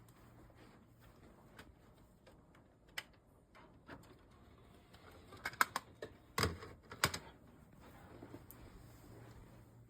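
Faint low hum with a scattering of short clicks and knocks, several of them bunched together a little past the middle.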